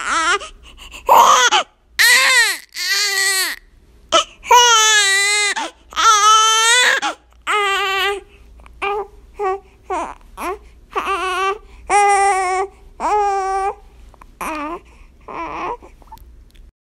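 Baby crying in a series of high wails, some long with a wavering pitch, others short and broken off, with brief catches of breath between them.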